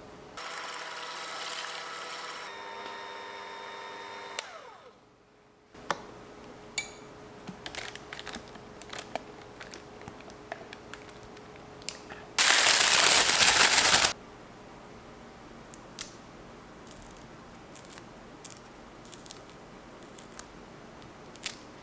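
Electric hand mixer whipping cream in a glass jug: the motor runs for about four seconds, steps down to a lower speed partway, then winds down and stops. Scattered light clicks follow, and near the middle comes the loudest sound, a rush of noise lasting about a second and a half, with faint handling clicks after it.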